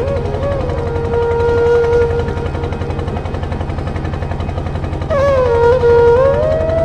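Steady chugging of a boat's inboard engine, with a melody of long, wavering held notes carried over it.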